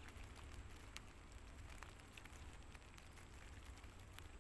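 Near silence: faint scattered clicks and rustles of a nylon mesh fish trap being handled by hand, over a steady low rumble.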